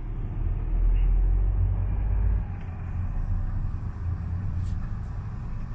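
Renault Master campervan driving, heard from inside the cab: a steady low engine and road rumble, heavier for the first two seconds or so and then easing off a little.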